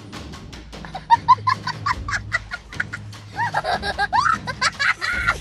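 A young child's high-pitched laughing in quick bursts that sweep up and down in pitch. It starts about a second in and gets much louder past the middle, over a fast ticking music beat.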